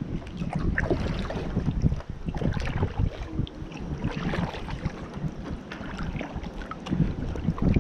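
Wind buffeting the microphone, with water splashing and lapping as a kayak is paddled.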